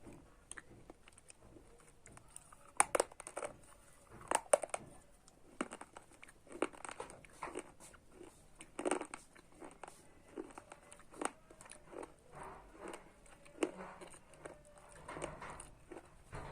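Close-up crunching as a person bites and chews hard, brittle slate pencil and baked-clay diya pieces: irregular gritty chewing crackles with a few sharp, loud bites standing out.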